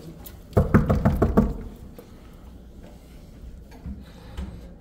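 A quick run of five or six knocks or thumps, starting about half a second in and lasting about a second, then low steady background noise.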